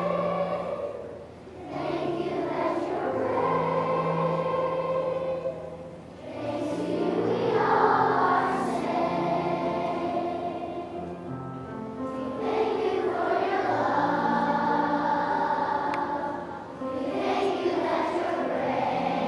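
A choir singing long held notes in phrases, with short breaks between phrases about a second and a half in, around six seconds in, and near the end.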